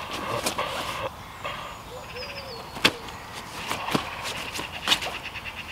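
Wild birds singing and calling, with repeated high trills and short whistles, broken by a few sharp knocks close by, the loudest about three seconds in and another near the end.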